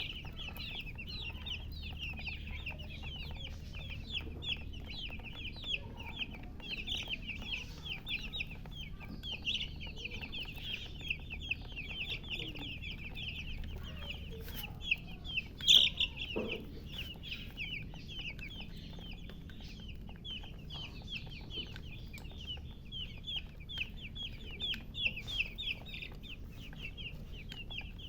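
Baby chicks peeping without a break: many short, high, downward-sliding peeps several times a second. There is one louder call about halfway through.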